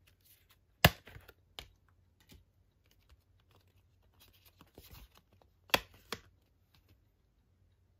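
Discs snapping off the plastic centre hubs of a steelbook's disc trays: two sharp clicks about five seconds apart, each followed by a smaller click, with light plastic rattling between.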